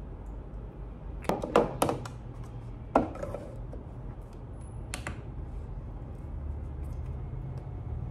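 Small hard clicks and knocks of a glass essential-oil bottle and an aroma diffuser's parts being handled on a hard counter: a quick cluster about a second in, one sharper knock about three seconds in and another near five seconds. A steady low hum runs underneath.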